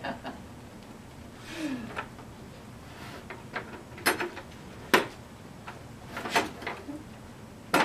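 Scattered knocks and clatters of a small plastic bucket as a dog's paws step in and bump it, the sharpest knock about five seconds in.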